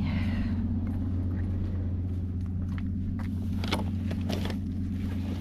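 Pickup truck engine idling steadily, with a few short rustles and clicks from a bag being handled in the second half.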